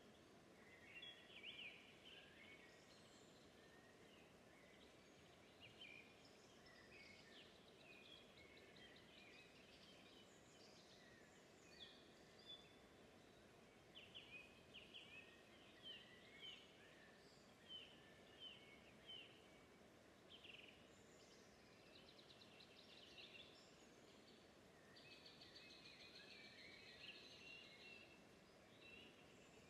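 Faint birdsong: several birds calling in short high chirps and trills, with a run of evenly spaced chirps in the middle and a couple of fast buzzy trills near the end, over a faint steady outdoor background.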